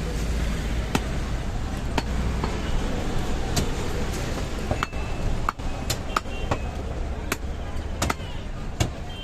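Butcher's cleaver chopping a goat leg on a block: a dozen or so sharp strikes, irregularly spaced and closer together in the middle, over steady street traffic noise.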